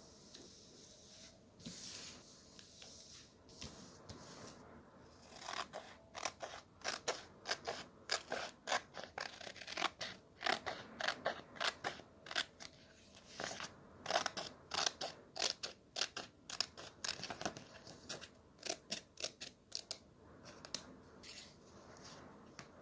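Scissors cutting paper in quick successive snips, with softer paper rustling at the start and end.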